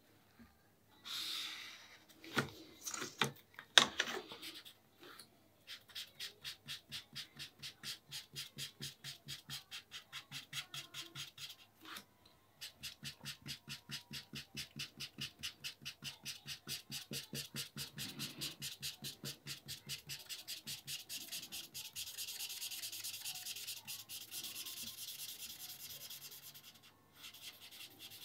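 Felt-tip marker scribbling rapidly back and forth on paper, shading in solid black areas, at about four even strokes a second, with a short pause near the middle. The strokes blend into a smoother continuous scrubbing near the end. At the start come a few louder strokes and sharp knocks, the loudest about four seconds in.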